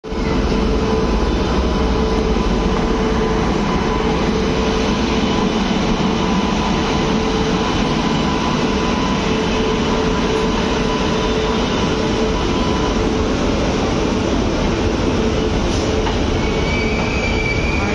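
Indian Railways WAP-7 electric locomotive and its coaches rolling past close by: a loud, steady rumble of wheels on rail with a steady hum that fades out about two-thirds of the way through. A thin, high squeal comes in near the end.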